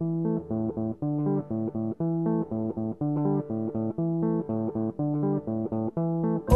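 Background music: a plucked guitar riff over bass, repeating the same short pattern of notes about once a second.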